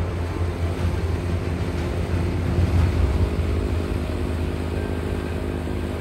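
John Deere 1025R subcompact tractor's three-cylinder diesel engine running under load, driving its 47-inch front-mount snowblower as it churns through deep snow and throws it; a steady low drone, loudest about halfway through.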